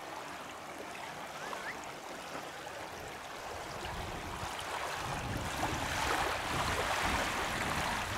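Rushing water, a steady hiss that grows louder about halfway through, with a low uneven rumble underneath.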